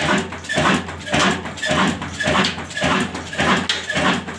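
Insaf Daska 'black engine' diesel running steadily, with a regular beat about twice a second over a steady low hum.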